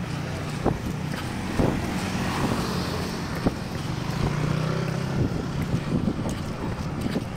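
Wind buffeting a phone microphone beside a road, over the low hum of a passing motorcycle or car engine that is strongest around the middle. Soft thumps about once a second come from the jogger's stride.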